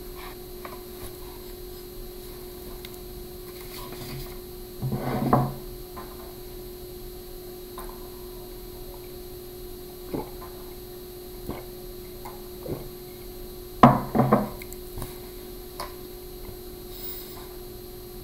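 Quiet room tone with a steady faint hum and a few soft, scattered knocks and taps; the loudest are a short cluster about a third of the way in and a quick double knock about three quarters through.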